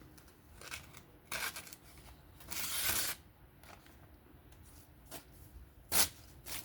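A knife blade slicing through a single ply of hanging paper towel as a sharpness test, making a papery hiss of under a second about two and a half seconds in, with a shorter rasp before it and a couple of sharp clicks near the end. The cut goes almost all the way through.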